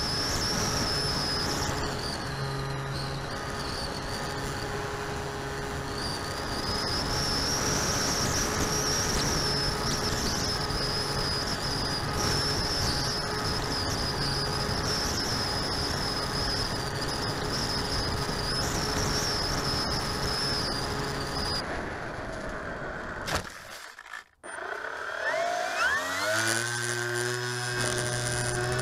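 Electric motor and three-blade propeller of a foam-board RC plane whining steadily in flight, with rushing air noise under it; the pitch wavers up and down with throttle. Near the end the sound cuts out briefly, then the motor spools up with a rising whine and settles.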